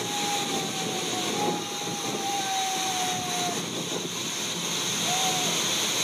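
Large waterfall pouring onto rocks close by, a steady rushing roar of falling water and spray. A thin held tone sounds over it for about four seconds, sinking slightly in pitch, with a brief one near the end.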